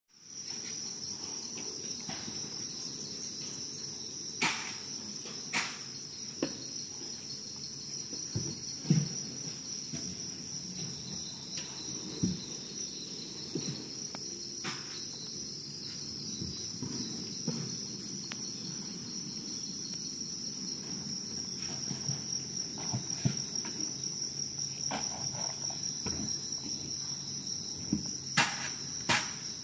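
Crickets chirping in one continuous high-pitched trill, with a few sharp clicks or knocks scattered through, two of them close together near the end.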